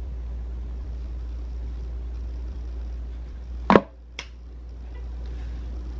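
Steady low hum, then a sharp click of a makeup item being handled about two-thirds of the way in, followed half a second later by a lighter click; the hum falls away after the first click.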